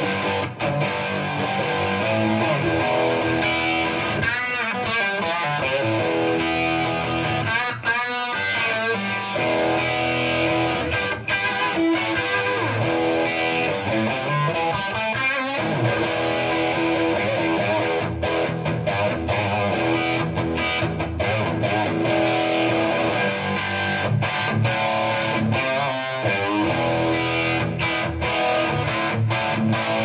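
Overdriven electric guitar played through a cranked 1972 Marshall Model 1986 50-watt Bass head with its channels jumped, from a Gibson Les Paul R9 reissue with humbuckers into a Marshall 4x12 cabinet with G12 Vintage speakers. Continuous distorted riffing and chords, with a few bent, wavering notes.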